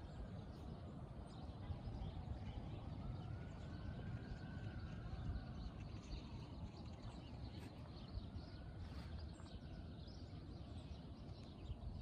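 Outdoor city background noise: a steady low rumble, with a faint tone that slowly rises and falls twice.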